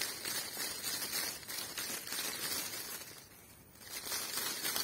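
Leaves of a hand-held poplar twig rustling as it is shaken, dying down briefly a little past the middle and then picking up again.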